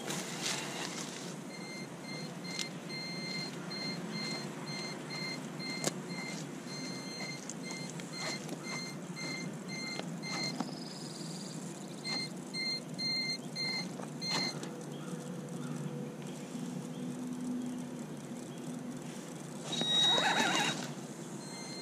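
Radio-controlled Bigfoot monster truck driving down a wood-chip pile and across gravel, its motor and tyres louder for a moment as it comes right up close about twenty seconds in, with a brief high whine. Through the middle a steady short beeping, about two beeps a second, sounds for several seconds, breaks off and comes back.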